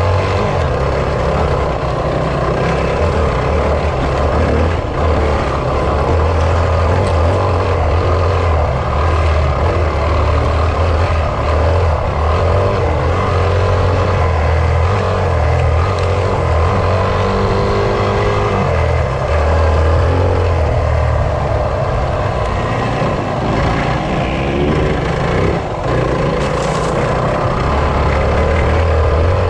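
Enduro motorcycle engine running as the bike is ridden along a dirt track, heard from the rider's own bike, its note rising and falling with the throttle now and then.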